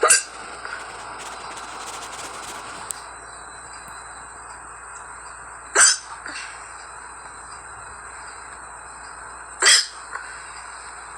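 A girl hiccuping three times, several seconds apart, each hiccup a short sharp sound over steady background noise.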